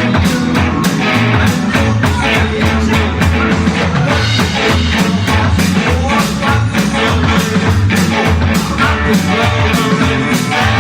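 Rock and roll band playing at a steady driving beat, with guitar, bass and drums and some singing.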